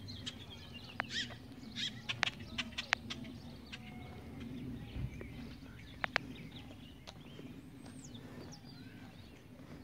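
Birds calling outdoors: a cluster of short, sharp chirps in the first three seconds, a couple more around six seconds and a few sliding whistles later, over a steady low hum.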